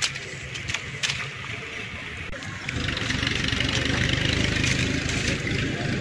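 A few sharp clicks in the first second. From about three seconds in, a motor engine runs steadily nearby.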